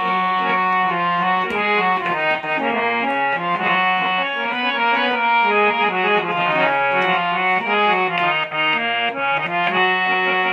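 Instrumental interlude of a Bhojpuri folk song: a free-reed keyboard instrument plays a moving melody over a lower sustained line, with no singing.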